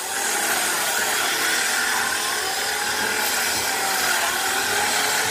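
Electric wood planer running as it planes wooden boards: a steady, continuous machine noise with a faint whine that wavers slightly in pitch.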